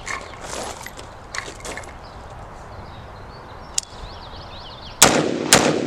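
Two shots from a 5.56 AR-15 rifle with a 16-inch barrel, fired about half a second apart near the end, each leaving a ringing tail.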